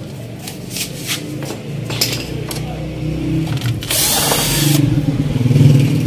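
Cordless drill at work on a window AC's sheet-metal casing as screws are backed out: a series of sharp clicks and knocks in the first couple of seconds, a short harsh burst about four seconds in, then the drill's motor running louder near the end.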